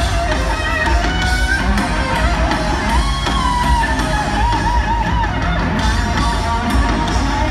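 Live heavy metal band with an electric guitar lead bending and shaking notes over bass and drums, picked up from far back in the venue.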